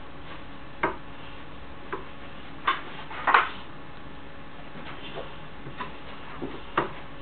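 Irregular light taps and clacks of a child's hands and small plastic Play-Doh tools on a wooden tabletop, about eight in all, the loudest a little over three seconds in.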